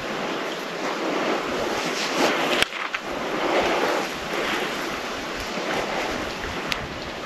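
Wind rushing through pines and brush, rising and falling in surf-like swells, with a sharp click about two and a half seconds in.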